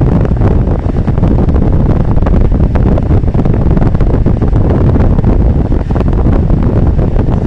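Inside a moving car's cabin, picked up by a windscreen dashcam: loud, steady road and engine rumble with frequent small clicks and rattles.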